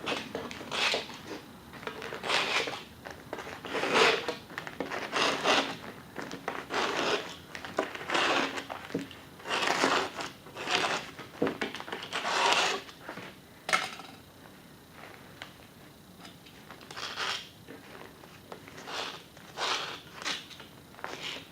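Paper-faced insulation batt being handled and cut, giving irregular crinkling and crunching rustles about once a second, thinning out in the second half.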